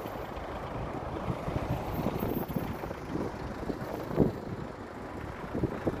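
Strong gusty wind buffeting the phone's microphone, over the low rumble of street traffic.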